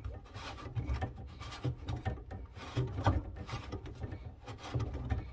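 Irregular rubbing, scraping and light knocks of hands working a plastic wing nut and hose fittings under a kitchen sink.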